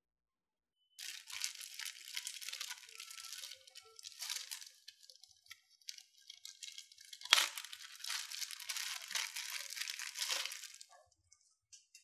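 Thin clear plastic bag crinkling and rustling as it is handled and opened, starting about a second in, with one sharp crack a little past the middle.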